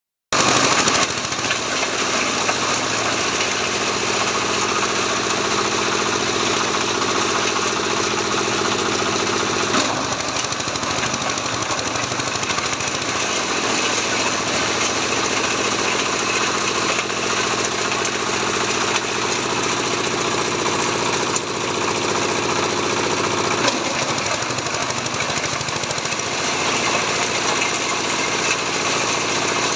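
Engine-driven chopper-shredder running loudly and continuously while chopping palm fronds, a dense clattering grind over the engine's steady drone. The engine note shifts a few times, around a third of the way in and again near the end.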